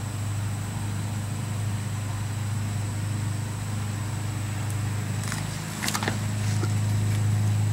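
A steady low hum, with a few light clicks and rattles about five to six seconds in from the metal headlight housing and LED bulb wire being handled.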